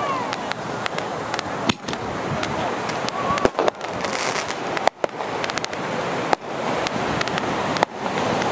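Consumer fireworks rockets launching and bursting: loud bangs about every second and a half over continuous hissing and crackling, with a few short whistles.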